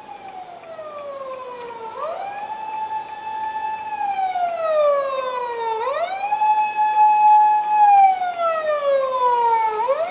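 Electronic emergency siren of a Tokyu Railway work van on an emergency run, heard from inside a car. The wail holds a high note for about two seconds, slides down over about two seconds and snaps back up, three times, and grows louder as the van draws alongside.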